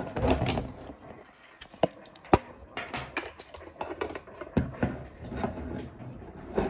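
Handling noise at a table: scattered knocks and rustling, with two sharp knocks near the middle, the louder one about two and a half seconds in.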